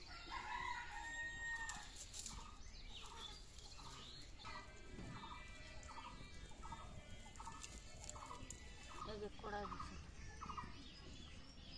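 A hen clucking, faint: a drawn-out call near the start, then a steady run of short clucks about two a second.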